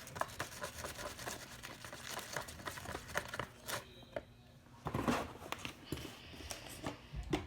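A spoon stirring and scraping a thick slime mixture in a bowl, with irregular clicks and scrapes and a louder cluster about five seconds in.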